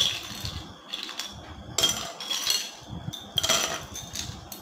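Ice cubes clinking and clattering into a tall drinking glass as they are tipped in from a bowl, in three bursts: at the start, about two seconds in, and about three and a half seconds in.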